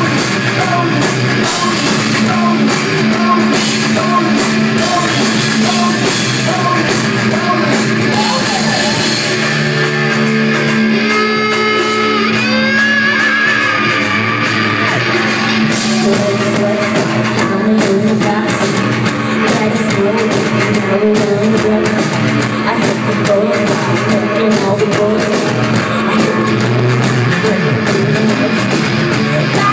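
A rock band playing live: drums, electric guitar and synth in a steady, loud mix, with some singing.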